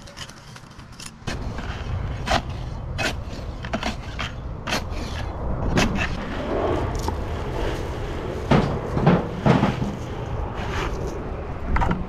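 Hand tools scraping and knocking against concrete rubble and a plastic bucket: irregular clicks and scrapes with three louder knocks in quick succession past the middle, over a steady low rumble.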